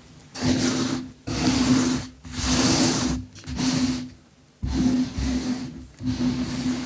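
Repeated crunching and crumbling of a crunchy material, in about six bursts of a second or less, with short gaps between them.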